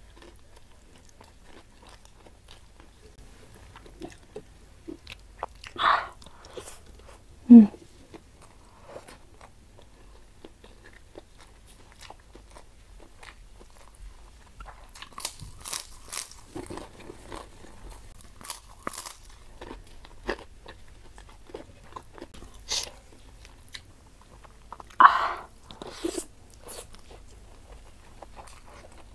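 Close-miked eating: crisp crunching bites of white kerupuk crackers and chewing of rice and spicy shredded beef, with wet mouth clicks. The crunching comes in a thicker run about halfway through, and a few louder short mouth noises stand out about six to eight seconds in and near the end.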